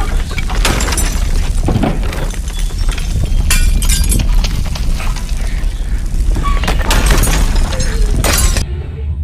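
Staged earthquake: a continuous deep rumble with repeated crashes of shattering glass and breaking objects, cutting off suddenly near the end.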